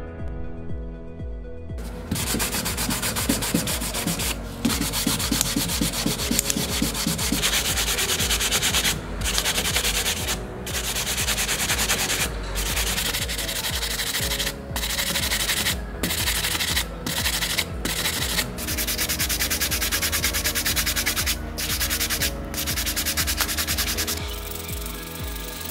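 Hand sanding a small model car part with a sanding sponge: dense scratchy rubbing strokes with many brief pauses between them. Background music plays underneath and is heard on its own for the first couple of seconds and again near the end.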